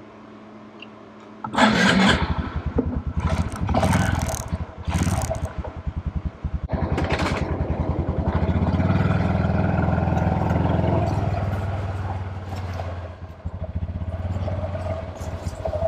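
Honda Super Cub's single-cylinder four-stroke engine catching about a second and a half in, revved in a few short bursts, then running on more steadily with the revs rising and falling.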